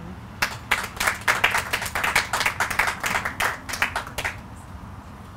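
A small audience clapping in a short round of separate hand claps, dying out about four seconds in.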